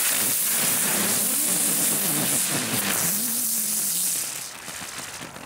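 A cluster of small 'dicke Brummer' ground-spinner fireworks burning together: a loud spraying hiss of sparks over a low buzzing hum that wavers up and down as they spin. It starts suddenly and dies away after about four seconds.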